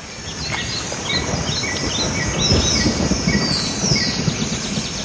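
Outdoor nature ambience: a bird repeating a short chirp about twice a second over a steady high insect buzz, with uneven low rumbling underneath.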